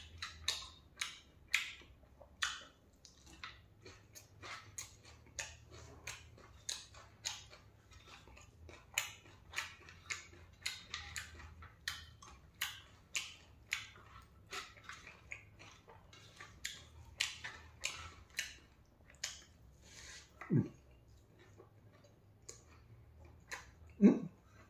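Close-up eating sounds of a person chewing a mouthful of rice and singju, the crunchy Manipuri salad of shredded raw vegetables: irregular wet crunches and lip smacks, a few a second. There is a short low hum-like vocal sound about twenty seconds in and another near the end.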